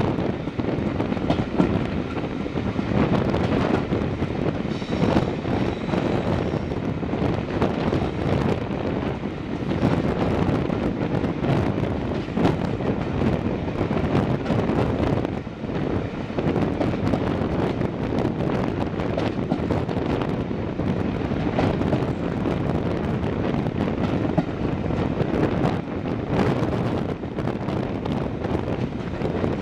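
Train of coaches hauled by a Class 37 diesel locomotive running along the line, heard from an open carriage window, with steady wind buffeting the microphone.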